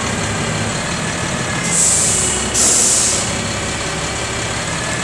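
Diesel engine of a Freightliner M2 106 knuckle-boom truck idling steadily, with two short, loud hisses close together about two seconds in.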